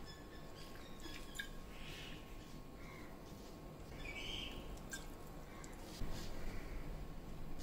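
Faint rubbing and squishing of a hand mixing whole wheat flour with water into chapati dough in a pan. A short trickle of water is poured in from a bottle about four seconds in.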